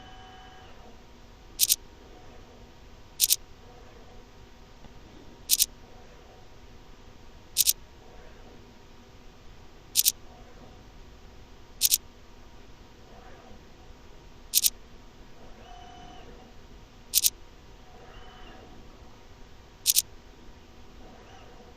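Falcon CNC video measuring machine running its measuring program automatically: faint motor whirs as the stage moves, broken by about ten sharp clicks roughly every two seconds. Brief beep-like tones come at the start and again around two-thirds of the way through.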